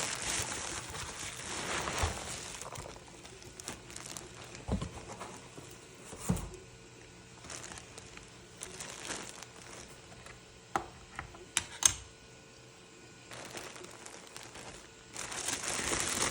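Packaging crinkling and rustling as it is handled, with a few scattered light knocks; the crinkling grows louder near the end.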